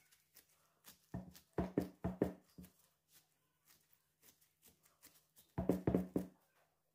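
Gloved fingertips pressing dimples into soft yeast dough in a ceramic baking dish: two runs of quick soft thuds, about six starting a second in and about five near the end, with faint plastic-glove crinkles between.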